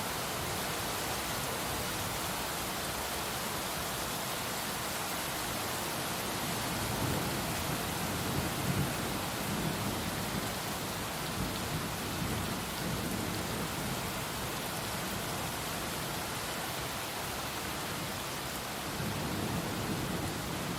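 Heavy rain pouring steadily, with low rolls of distant thunder swelling about a third of the way in and again near the end.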